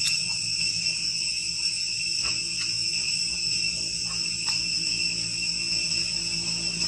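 Steady, high-pitched insect chorus ringing at several pitches at once, with a few faint clicks about two and four seconds in.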